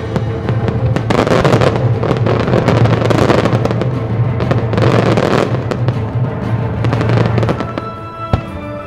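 Aerial fireworks shells bursting in a dense barrage of bangs and crackling, strongest from about a second in until near the end, when it thins out. Music plays underneath throughout.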